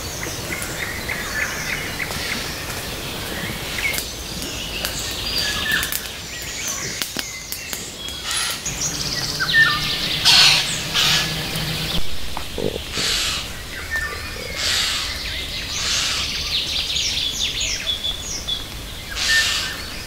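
Wild birds chirping and singing, with many short calls and trills throughout. In the second half, short harsh, noisy calls break in every second or two.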